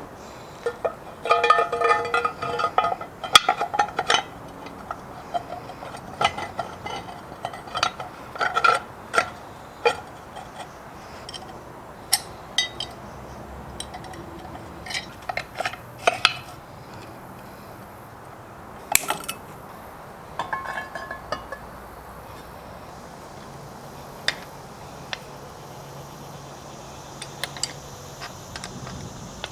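Metal parts clinking and knocking together as they are handled, a few strikes ringing briefly in the first few seconds, then sparser, lighter clinks.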